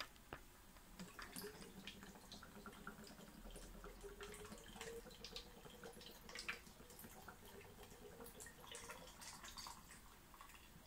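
Faint sound of milk being poured into a blender jar: a quiet trickle whose pitch rises slowly as the jar fills, with small drips and clicks.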